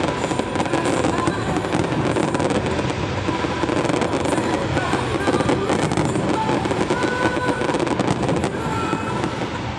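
Aerial fireworks display: a dense, continuous barrage of shells bursting and crackling, many going off at once without a break.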